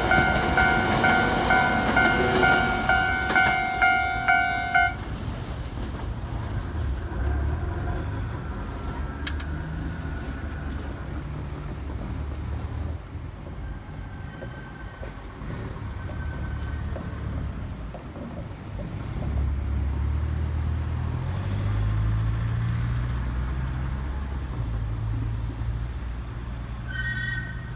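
Level-crossing warning bell ringing in a steady two-tone pattern about twice a second as a Toei 5300-series electric train clears the crossing. The bell cuts off suddenly about five seconds in, and the train's wheels and motors fade to a low rumble as it runs away down the line. A short tone sounds again near the end.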